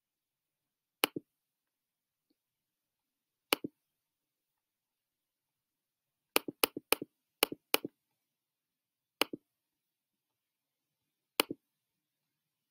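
Sharp clicks of a computer pointing device, each a quick press-and-release, about nine in all: single clicks about a second in and at three and a half seconds, a quick run of five between six and eight seconds in, then two more single clicks. Near silence between them.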